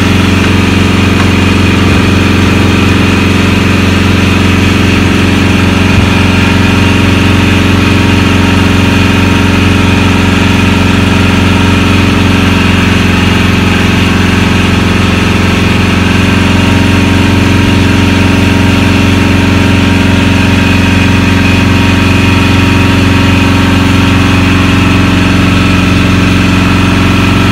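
Loud, steady machine hum like an idling engine, unchanging in pitch and level.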